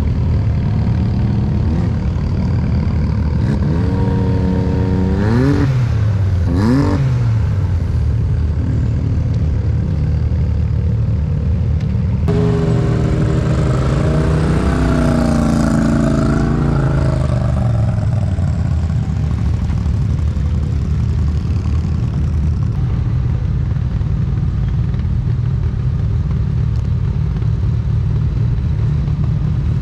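Off-road race vehicle engines running steadily at the start line. One engine is revved quickly up and down a couple of times about 4 to 7 seconds in. About 12 seconds in, a loud engine run begins suddenly, its pitch climbing and falling for several seconds as a vehicle accelerates hard.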